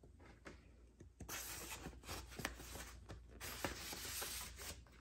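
A vinyl record in its paper inner sleeve being slid into a cardboard album jacket: two stretches of paper rubbing against cardboard, with small taps and clicks.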